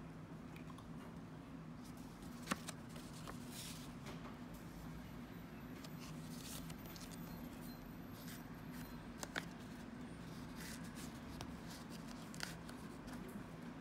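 Gloved hands unfolding and handling a folded paper certificate booklet: soft paper rustling with a few light taps, over a faint steady low hum.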